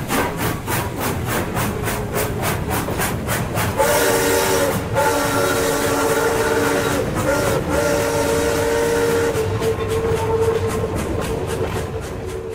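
Sound system of a model New York Central J-1e Hudson steam locomotive: steady rhythmic chuffing at about four beats a second, with a multi-chime steam whistle sounded in a long, long, short, long pattern, the grade-crossing signal, starting about four seconds in. A fainter whistle tone lingers after the last blast.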